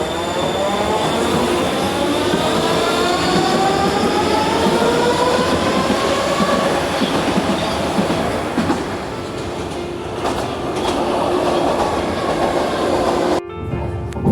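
Electric train pulling away, its motors giving a whine that rises steadily in pitch for the first six or seven seconds and then levels off into the running noise of the wheels on the rails. There are a couple of sharp knocks about ten seconds in.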